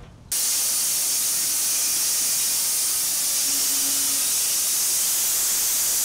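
Electric band sawmill cutting through a log: a steady, even hiss of the blade in the wood that starts abruptly a third of a second in.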